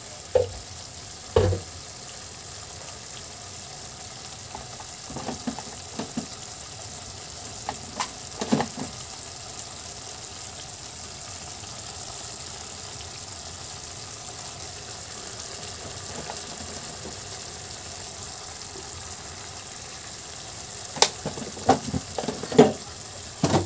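Beef and onion rings in sauce sizzling steadily in a pan, with a few short knocks and clicks, a couple near the start and a cluster near the end.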